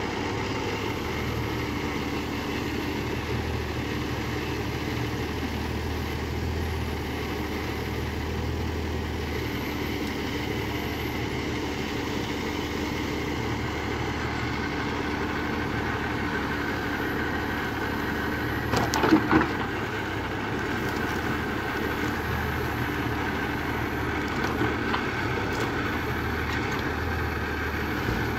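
Valtra 8350 tractor's diesel engine running steadily while it drives a forestry crane handling logs. About two-thirds of the way through comes a short cluster of sharp wooden knocks and cracks as the grapple handles the logs.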